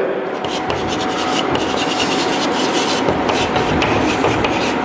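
Chalk writing on a blackboard: a quick run of short scrapes and taps as words are written out.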